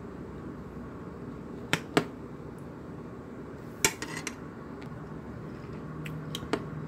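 Metal fork clinking and scraping against a ceramic dinner plate: two sharp clicks about two seconds in, another near four seconds followed by a few lighter taps, and some faint taps near the end.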